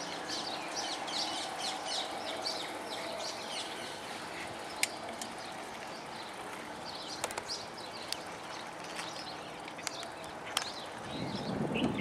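Small birds chirping: many short, high chirps in quick succession, thinning out midway and picking up again. A few sharp clicks come through the middle, and a louder low rushing noise builds near the end.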